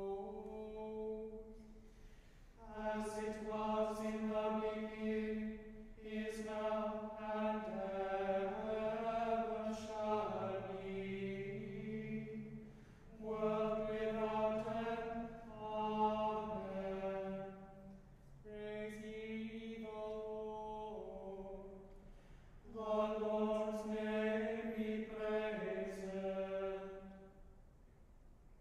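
Small choir chanting in unison, one melodic line sung in several phrases with short pauses for breath between.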